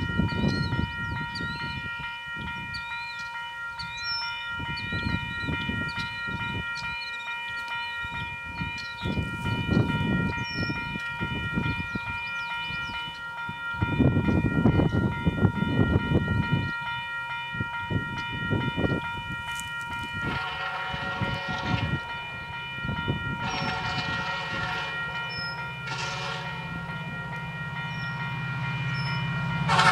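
Strong wind gusting on the microphone, under a faint steady high ringing tone. About twenty seconds in, the approaching F40PH-2 diesel locomotive's air horn blows the grade-crossing signal: two long blasts and a short one. The final long blast begins near the end as the rumble of the train grows louder.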